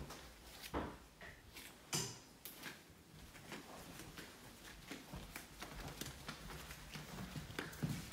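Soft footsteps of flip-flops walking across carpet and then onto a wood floor, as a scatter of small irregular ticks and taps. Two louder knocks come about one and two seconds in.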